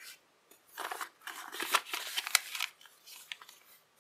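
A folded-paper origami firecracker being handled and refolded, the paper rustling and crinkling with several crisp snaps, as its popped-out inner flap is tucked back in to reset it.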